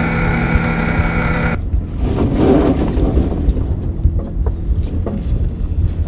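Fishing boat machinery: a steady mechanical hum and whine that cuts off abruptly about a second and a half in, giving way to a low engine-like rumble with a few knocks.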